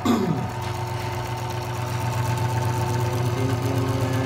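Belt-driven 13 mm, 1/3 HP benchtop drill press running, its electric motor giving a steady hum. A sharp knock with a quick falling squeak comes right at the start.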